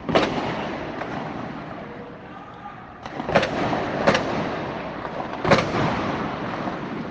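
Four loud detonations, one near the start and three more between about three and a half and five and a half seconds in, each followed by a long rolling echo. These are the blasts of a street clash between protesters and security forces.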